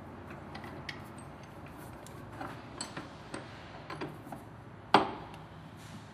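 Light metal clicks and clinks from a steel bench vise being tightened around the polisher's part, with one sharp metal clank about five seconds in.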